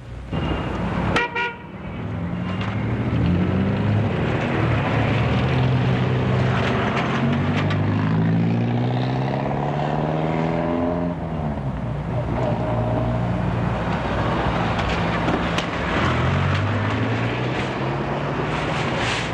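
A sharp knock about a second in, then a steady running rumble under long horn tones that slide slowly up and down in pitch.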